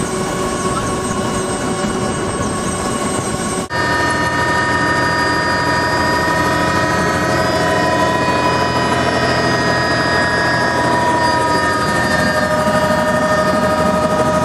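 Helicopter engine and rotors running steadily, a constant noise with high steady whining tones. It breaks off abruptly about four seconds in and comes back a little louder.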